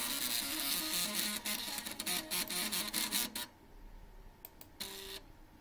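A 3.5-inch floppy drive's head stepper motor, driven by an Arduino, buzzes out a fast riff of stepped notes with a gritty clicking edge. It stops about three and a half seconds in, and a single short buzzing note follows about a second later.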